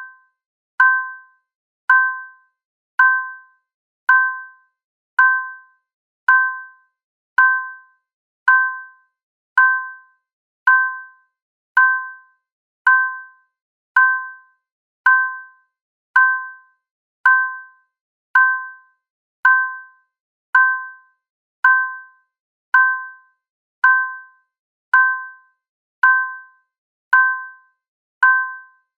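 Stock ding sound effect repeating at an even pace, a little slower than once a second: each ding is two tones struck together that fade out within about half a second.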